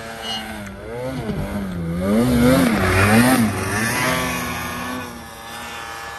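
Polaris 800 two-stroke snowmobile engine revving hard through deep powder. Its pitch rises and falls as the throttle is worked. It is loudest as the sled passes close, about two to three and a half seconds in, then fades as it pulls away.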